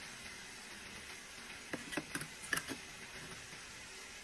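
Wooden spatula clicking and scraping against the pan while carrots, peas and onion fry, with a quick run of sharp clicks about halfway through over a steady sizzle.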